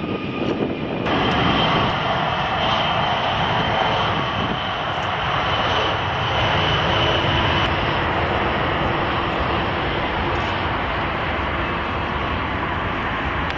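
Jet airliner on final approach: a steady engine roar with a thin high whine over it.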